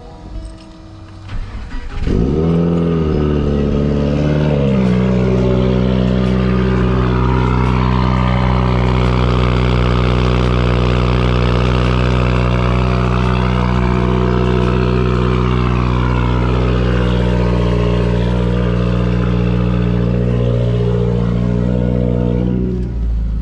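Subaru WRX turbocharged flat-four engine starting about two seconds in, its revs dipping and flaring up, then settling into a steady idle on a cold start.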